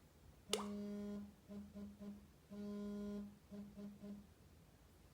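Samsung Galaxy S4 vibration motor buzzing through a vibration pattern, opened by a sharp click: one long buzz followed by three short ones, played twice. The buzz is low and even-pitched.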